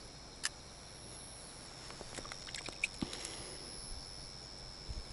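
Faint handling noises, a sharp click about half a second in and a scatter of small clicks and rustles a couple of seconds in, as a small fish is taken off the hook with gloved hands. A steady high insect trill runs underneath.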